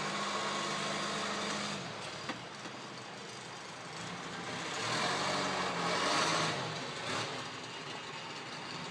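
John Deere 510B backhoe's diesel engine running, dropping in revs about two seconds in, then revving up again around five seconds and falling back near seven seconds. A single sharp click just after the first drop.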